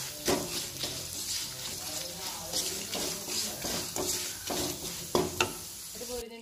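Wooden spatula stirring and scraping thick chilli masala frying in oil in a nonstick pan: a steady sizzle with repeated scraping strokes. The sizzle cuts off suddenly near the end.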